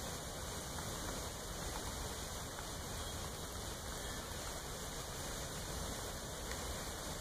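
Steady, even noise with no distinct sounds standing out.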